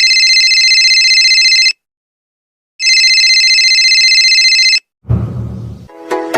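A telephone ringing: two rings of about two seconds each with a rapid flutter, a second apart. Near the end a short low rumble, then music with a regular beat begins.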